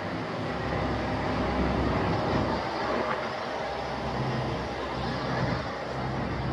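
A passenger ferry's engines droning steadily under a broad rushing noise of water and air, with a low hum that grows stronger in the second half.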